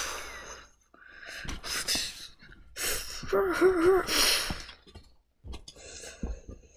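A voice making breathy gasping sounds, with a short wavering cry about halfway through, voiced as sound effects for plush toys in a mock fight. Faint soft clicks follow near the end.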